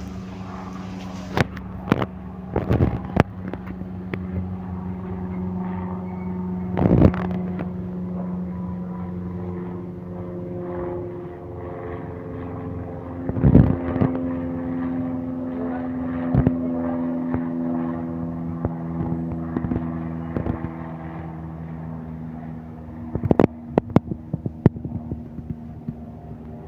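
Aircraft engine running with a steady, pitched hum that shifts slightly in pitch partway through. Sharp knocks are scattered over it, the loudest about a third and halfway in and a quick cluster near the end.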